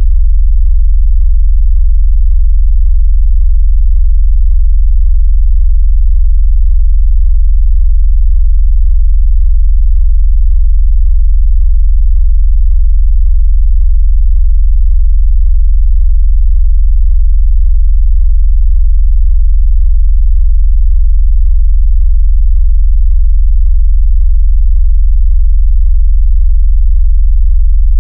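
A loud, steady, very deep electronic sine-wave hum with a rapid, even pulsing: a synthesized vibration tone made to shake a phone and push water out of its speaker.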